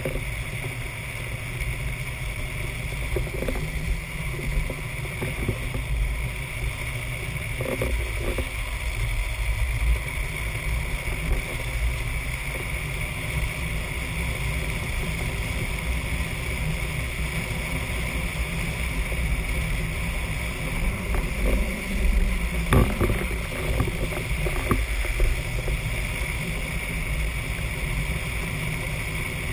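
Drift trike rolling fast downhill on asphalt: a steady rush of wind and low wheel rumble, with a couple of sharp knocks about two-thirds of the way through.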